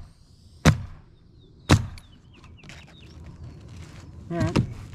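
Pneumatic coil roofing nailer firing twice into asphalt shingles, two sharp shots about a second apart, followed by light clicks and taps.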